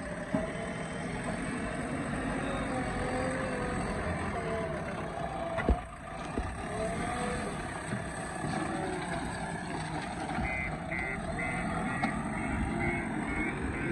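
Diesel engine of a JCB 3DX backhoe loader running under working load, with one sharp knock about six seconds in. From about ten seconds in a reversing alarm beeps steadily, roughly two beeps a second.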